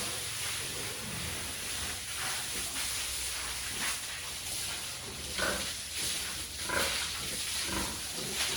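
Several short animal calls in the second half, over a steady hiss.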